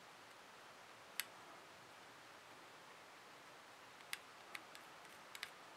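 Sharp, separate clicks from an M4 front sight post being turned with a pointed tool while its detent is held down: one about a second in, then a quick cluster of several in the second half.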